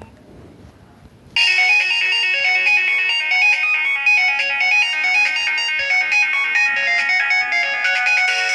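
Nokia 1209 mobile phone playing one of its built-in ringtones: a fast, bright melody of short notes, several at a time, that starts suddenly about a second and a half in after a faint hiss.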